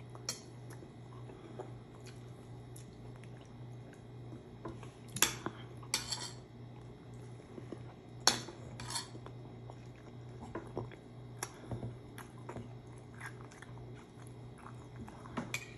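Spoon and dishes clinking during a meal: scattered sharp clinks, the loudest about five to nine seconds in, with soft chewing between them over a low steady hum.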